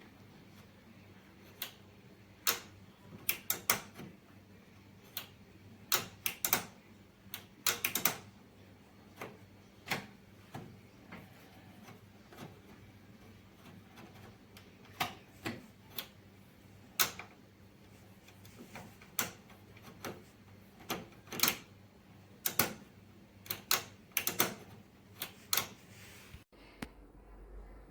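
Orbegozo MIG 2130 microwave oven running with a faint steady hum and irregular sharp clicks, several in quick clusters: an odd noise the owner remarks on.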